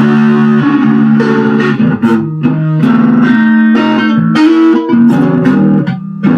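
Instrumental rock music: guitar playing sustained notes that change about every half second, over bass, with no singing.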